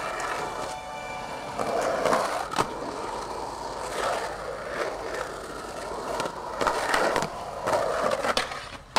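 Skateboard wheels rolling on the smooth concrete of a skatepark bowl. The rolling is broken several times by sharp clacks and scrapes as the board pops and lands and the trucks hit the edges.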